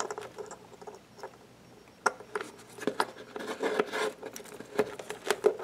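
Hands handling wires and plugging a plastic connector onto a LiPo battery lead: scattered light clicks and scrapes, with a sharper click about two seconds in.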